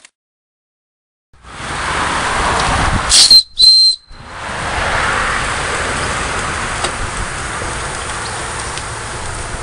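Wilesco D20 toy steam engine: after a second of silence its steam starts hissing, and its steam whistle gives two short, high toots about three seconds in. A steady hiss of escaping steam follows.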